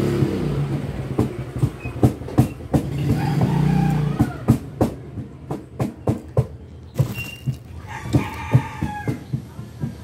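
A rooster crowing once, about eight seconds in, with a low engine hum passing at about three to four seconds in. Sharp clicks and taps are scattered throughout.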